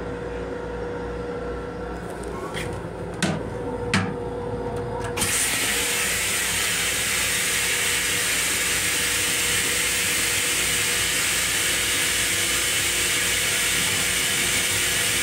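Metro-North M7 railcar toilet being flushed: two clicks, then a sudden loud, steady hissing rush of the flush over the train's low rumble and a steady hum.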